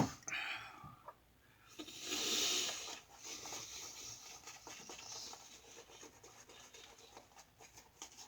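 Single-edge safety razor scraping through lather and stubble in short strokes, with a sharp click at the very start.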